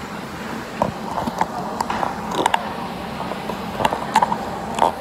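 Handling noise from the filming phone being picked up and moved: scattered short clicks and knocks, about nine in all, over a steady background hum.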